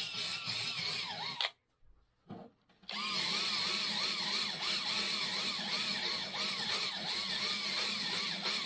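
Cordless drill spinning a cylinder hone inside a Polaris Ultra snowmobile cylinder bore, a second honing pass to clean up a stain and set the crosshatch. The whine rises and falls over and over as the hone is worked up and down. It stops about a second and a half in and starts again about a second and a half later.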